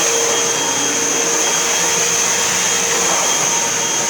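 Hoover Elite Whole House upright vacuum running steadily: an even motor rush with a steady high whine over it.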